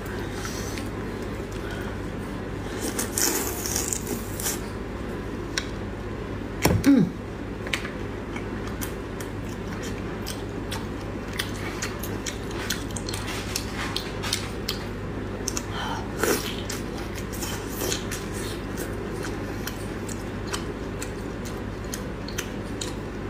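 Close-miked eating of soy-marinated raw black tiger prawns: scattered wet clicks and crunches as shells are peeled and bitten, with chewing and sucking over a steady low background hum. One louder brief sound comes about seven seconds in.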